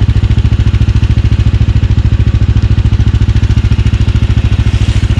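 Snowmobile engine idling steadily with an even, rapid pulsing beat.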